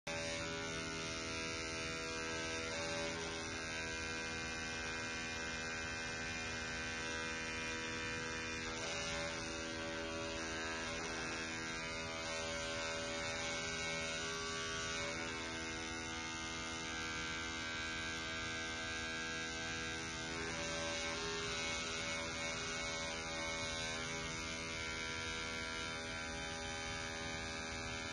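Electric toothbrush motor running with a steady buzzing hum, its vibrating head driving a stretched elastic cord.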